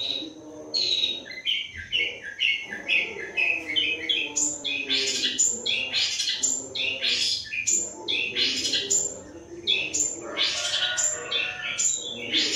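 Small birds chirping and twittering in quick, overlapping high calls that go on without a break.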